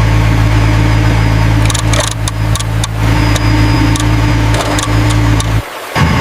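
Truck engine running steadily at a low hum, with a run of sharp clicks and knocks from about two seconds in; the engine sound cuts off shortly before the end.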